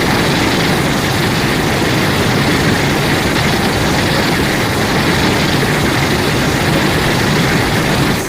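Designed kaiju sound effect: a loud, steady rushing rumble with no clear pitch, fading out at the very end.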